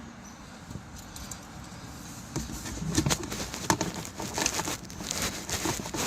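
Nuts and bolts being handled and threaded by hand while a toolbox is fitted to a tractor: a string of light metallic clicks and taps that starts about two seconds in.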